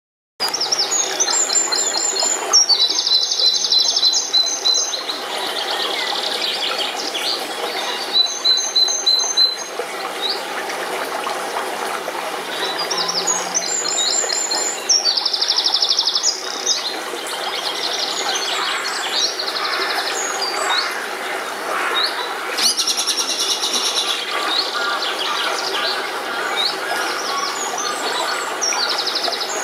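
Dawn chorus: several songbirds singing short repeated phrases and trills, one after another, over the steady rushing of a shallow stream at a ford.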